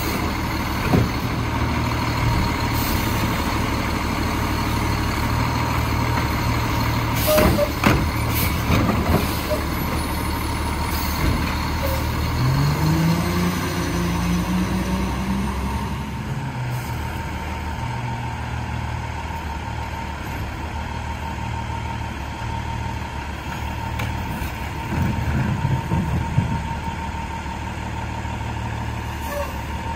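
Diesel garbage truck with a McNeilus Autoreach automated side-loader running steadily, with a constant thin whine over the engine drone. Sharp clanks and knocks come about a quarter of the way through and again near the end, and the engine rises in pitch as it revs near the middle.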